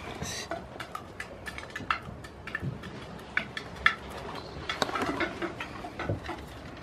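Irregular sharp taps and clicks of hens pecking feed from a small dish, with a few louder knocks and some rustling in the straw.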